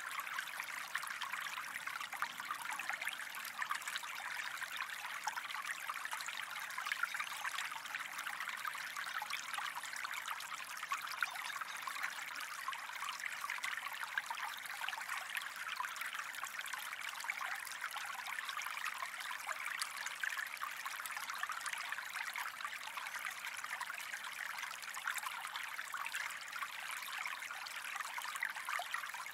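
A gentle stream trickling steadily, a constant even wash of running water with fine splashing.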